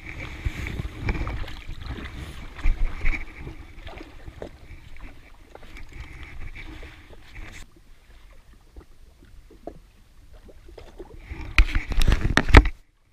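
Wind rumbling on the microphone and water slapping against the hull of an anchored jet ski, uneven and gusty. A louder burst of rumble with sharp knocks comes near the end.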